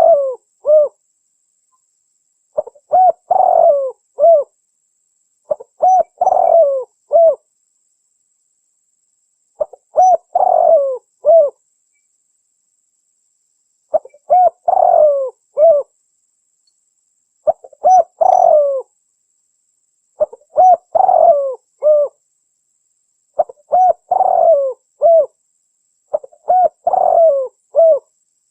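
Spotted dove (dekukur) cooing: a short phrase of several coos repeated about every three to four seconds, some eight or nine times.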